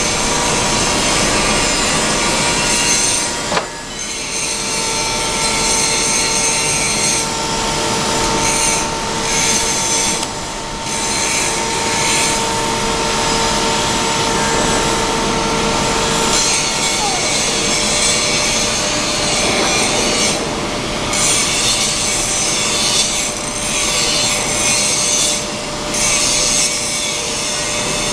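Electric reach truck running over a steady hissing noise. From about four seconds in, a steady whine, the mast's hydraulic lift raising the forks high, holds until about seventeen seconds and then winds down with a short falling tone.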